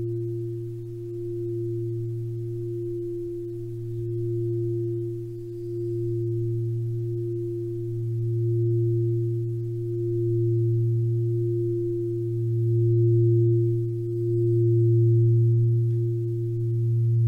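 Sustained low drone of relaxation music: two steady deep tones that swell and fade in slow waves every second or two, growing gradually louder.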